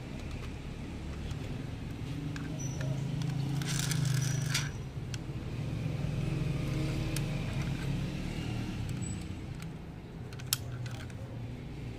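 Light clicks and taps of a small diecast model van being handled in the fingers, the sharpest click about ten and a half seconds in, over a low steady engine-like rumble; a short hissing rush about four seconds in.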